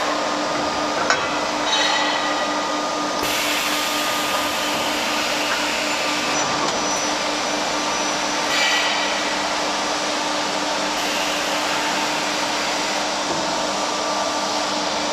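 Medium-frequency induction heating furnace line running with its steel-tube feeder: a steady, loud mechanical hiss and hum with a constant low tone. There is a click about a second in and short rattles at about two seconds and about nine seconds.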